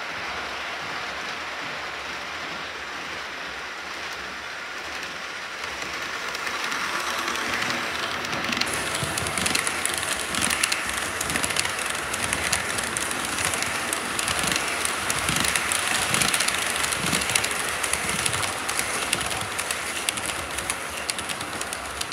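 Model freight train running past on layout track: its rumble grows louder, then becomes a close run of fast clicking as the wheels cross the track joints, and eases off near the end as the train moves away.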